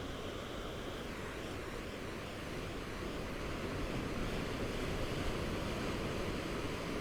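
Gentle ocean waves washing onto the shore, a steady rush of surf that swells a little louder from about halfway through, with some wind rumble on the microphone.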